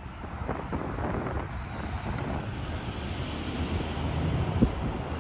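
Wind buffeting the microphone over a steady low rumble, with a few faint knocks.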